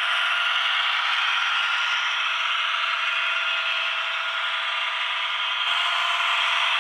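Heljan OO gauge Class 52 'Western' model locomotive's DCC sound decoder playing a steady diesel engine running sound through the model's small onboard speaker, thin and with no bass.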